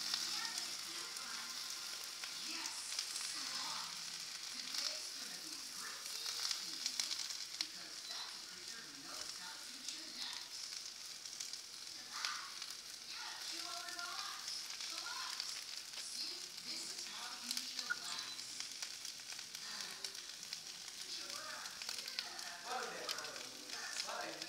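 Spinach sizzling in a frying pan over a gas burner: a steady, fairly quiet hiss with light crackles scattered through it.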